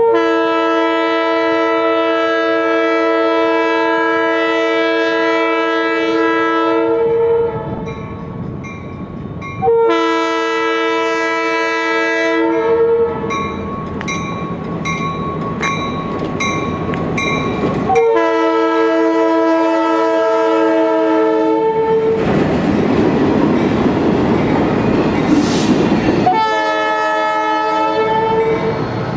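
Multi-chime air horn of Union Pacific EMD E9A passenger locomotive 949 sounding four blasts: a long one of about seven seconds, two of about three to four seconds, and a short last one. Between the blasts the locomotive and its car rush past, loudest just before the final blast.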